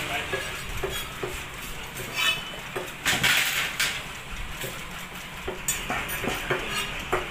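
Large fish-cutting knife knocking and chopping on a wooden chopping block while a Chinese pomfret is cut into pieces: a string of scattered short knocks, with a longer rustling scrape about three seconds in.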